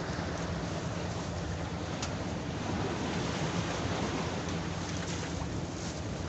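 A boat's engine drones steadily under a wash of waves and water. Wind buffets the microphone.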